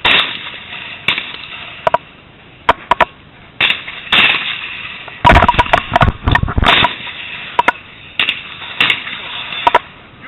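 Shotgun shots, about a dozen sharp reports over ten seconds, some loud and close, others weaker, each trailing a short echo, with a dense run of them about five to seven seconds in. That is too many for one double-barrel, so several shooters are firing at once.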